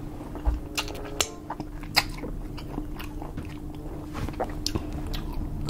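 Close-up chewing and biting of air-fried pork belly (liempo), with short, crisp mouth clicks and crunches at irregular moments.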